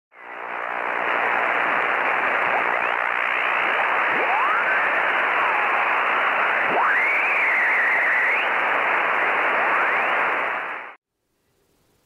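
Shortwave amateur radio receiver static: a steady hiss with whistling tones that slide up and down in pitch, one rising sharply and wavering for about a second and a half midway. It fades in at the start and cuts off suddenly about a second before the end.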